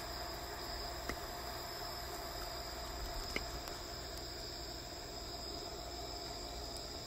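Steady chorus of night insects, crickets, with a constant high pitch over a low steady hum. Two faint ticks come about one and three and a half seconds in.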